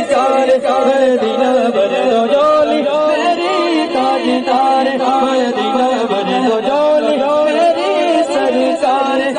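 Unaccompanied male voices chanting a naat, a devotional refrain sung without pause in a wavering, repeating melody.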